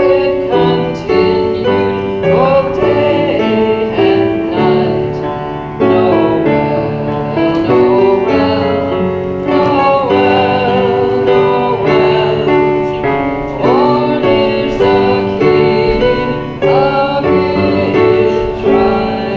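A group of voices singing a Christmas song with instrumental accompaniment, at a steady, even level of sound.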